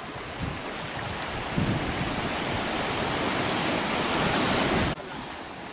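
Sea surf washing up a sandy beach: a steady rushing hiss that swells, then drops away suddenly near the end. Wind buffets the microphone underneath with uneven low rumbles.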